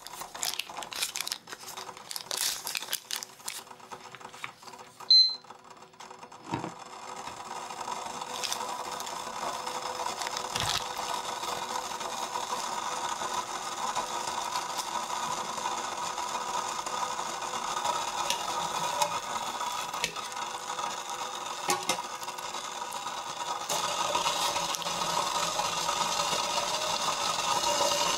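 Pot of hot water with bagels simmering in it: a steady bubbling hiss that builds up and grows louder near the end, with a few light metal clicks. In the first seconds the dough and its cloth are handled with soft rustles and taps, and a single short electronic beep sounds about five seconds in.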